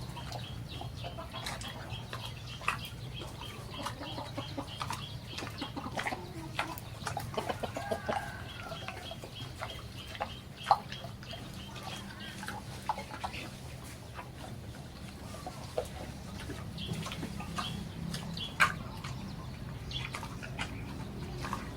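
Farmyard fowl clucking, with scattered sharp knocks and a steady low hum underneath.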